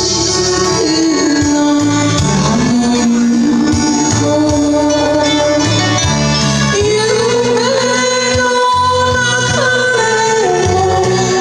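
A woman singing karaoke into a handheld microphone over a backing track, holding long, steady notes that step up and down in pitch.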